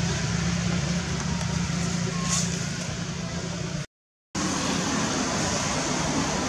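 Steady outdoor background noise with a low hum, broken by a short dead-silent dropout about four seconds in, after which the hum is gone.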